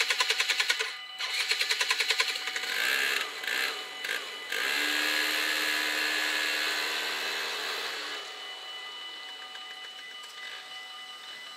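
Dutch level-crossing bells ringing in rapid strikes, about eight a second, stopping about two and a half seconds in. Then the barrier drive hums steadily for about three and a half seconds as the half-barriers swing up, and dies away.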